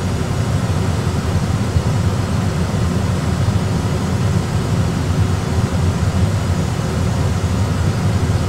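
Steady low rumble of Airbus A320 cockpit background noise, the airflow and engine sound of the aircraft on approach.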